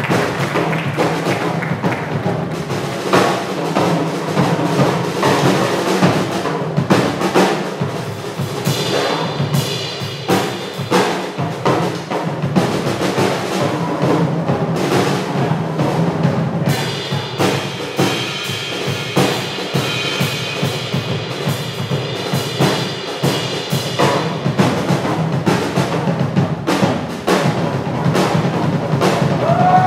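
Small jazz combo playing: drum kit, upright bass, piano and saxophone.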